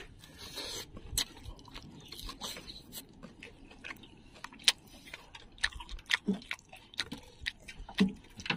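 A person chewing and eating close by: irregular small clicks and mouth smacks, as grilled fish and rice are eaten by hand.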